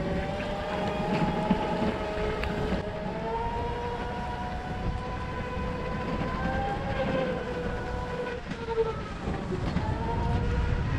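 Electric chopper scooter's motor whining while riding, several steady tones whose pitch drifts slowly up and down with speed, over a steady low rush of wind and tyre noise on the wet road.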